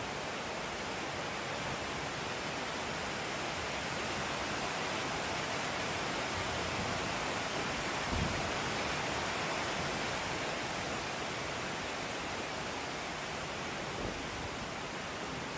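Heavy rain pouring down over rushing floodwater, a steady dense hiss. A single dull thump about eight seconds in.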